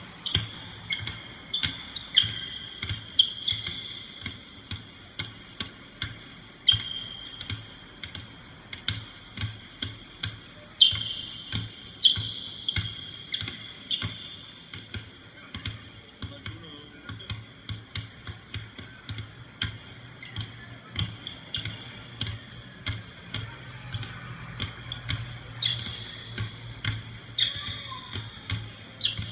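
Two basketballs dribbled on an indoor court floor in a ball-handling drill: sharp bounces, about one to two a second, ringing briefly in the big empty hall.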